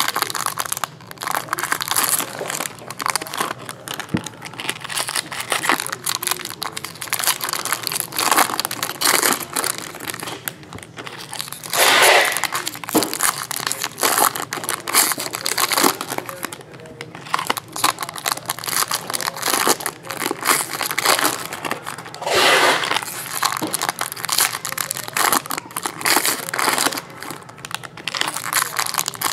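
Foil trading-card pack wrappers (2017 Bowman Jumbo packs) being torn open and crumpled by hand: continuous crinkling with louder rips every few seconds.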